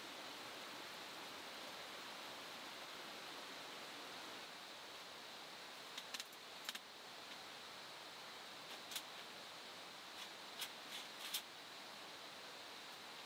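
Steady rush of a river, with a scatter of short, light clicks and clinks from about halfway through.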